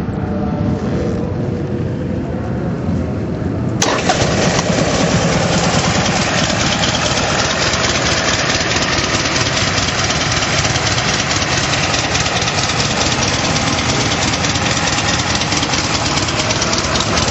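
Buell XB12STT Lightning's 1203 cc air-cooled V-twin engine running, turning much louder and denser all at once about four seconds in and staying that way.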